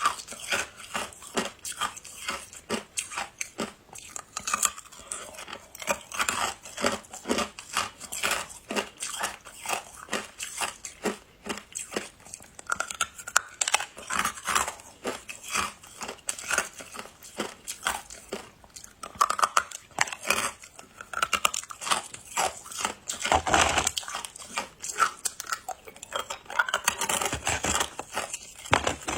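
Ice being bitten and chewed close to the microphone: a dense, irregular run of sharp crunches and crackles that keeps going, with heavier bites now and then.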